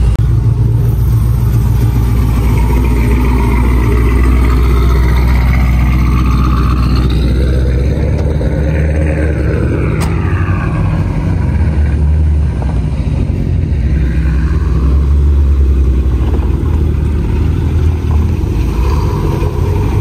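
A loud car engine running close by, with the revs rising and falling in the middle as cars drive past.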